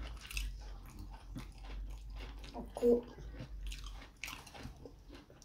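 Wet, sticky clicks and squelches of fingers pinching fufu and pulling it through stretchy ogbono soup, with mouth-eating sounds, irregular and close up.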